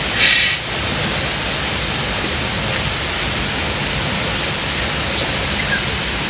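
Steady rushing of water around a river-rapids ride raft, with a short louder hiss just after the start.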